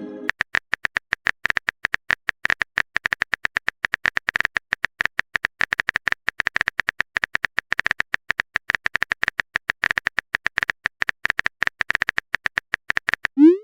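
Typing sound effect: a fast, uneven run of keyboard clicks that goes on without a break.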